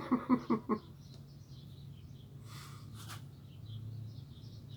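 Small birds chirping faintly and intermittently over a steady low hum, with a short rustle about three seconds in.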